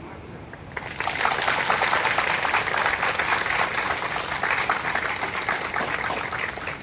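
A group of people clapping, breaking out suddenly about a second in and going on steadily.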